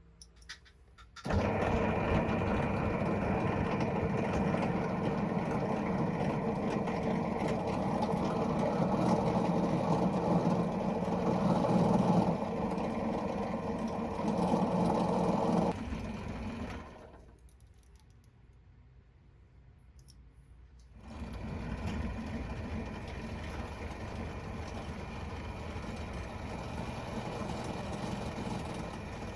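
A small motor running steadily, then stopping for a few seconds about two-thirds of the way through before running again more quietly.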